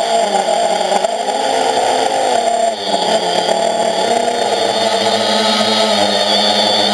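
Quadcopter's electric motors and propellers whining, heard up close from a camera on the frame, the pitch wavering with the throttle; it dips briefly and drops in pitch about three seconds in, then holds steady.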